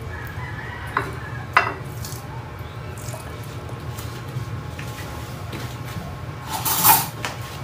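A metal spoon clinking against a ceramic bowl: two light clicks about a second in, then a louder clatter near the end, over a steady low hum.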